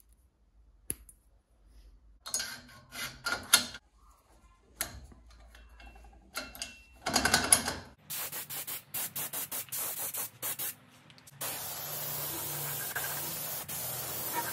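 Short metallic clicks and rattles of steel parts being handled. About eight seconds in, a compressed-air paint spray gun starts: a quick run of short hissing bursts as the trigger is pulsed, then a steady spraying hiss a few seconds later.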